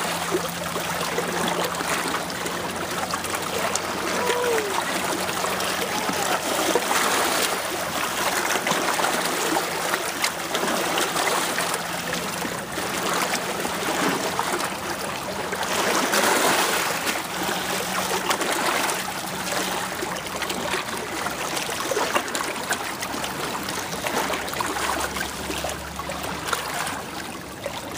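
Small lake waves lapping and splashing against a rocky shoreline, a steady wash that swells a little louder now and then.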